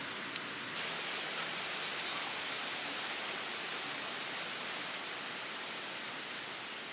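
Steady outdoor hiss that grows slightly louder about a second in, joined then by a thin, high, steady whine, with a couple of light clicks of bamboo pieces being handled early on.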